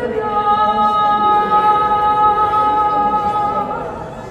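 Lyre strings ringing together in a chord of several sustained notes, which fade out near the end.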